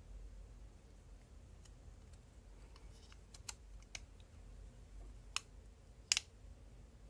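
A few faint, sharp clicks and taps of a Kershaw 1620ST pocket knife's parts being handled and fitted together. They come in the second half, with the loudest a little before the end.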